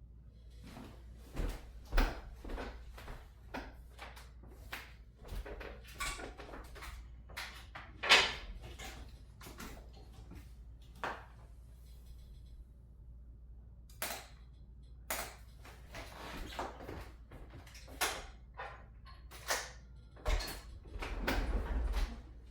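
Irregular clicks and knocks with rustling as a patient is handled and adjusted on a chiropractic treatment table. The loudest knock comes about eight seconds in, and a denser rustle with knocks follows near the end.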